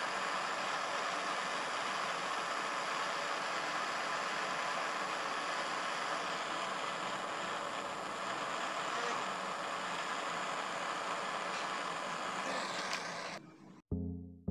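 Jeweller's torch flame hissing steadily as it heats a copper ring top to flow the solder. It cuts off abruptly near the end, and a couple of plucked musical notes follow.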